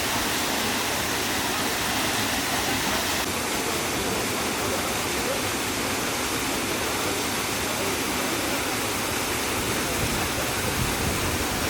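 Waterfall pouring into a pool, a steady rushing of water.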